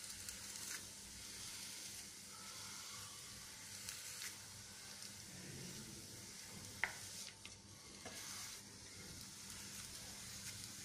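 A rolled patishapta crepe frying in a nonstick pan, sizzling faintly and steadily as it browns. A few light clicks come from a wooden spatula pressing and turning it, the loudest about two-thirds of the way in.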